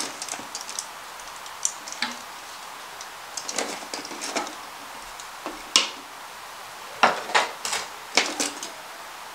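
Makeup brushes and small plastic items clicking and knocking together in a drawer as they are sorted by hand: scattered light clacks, with a few sharper ones in the second half.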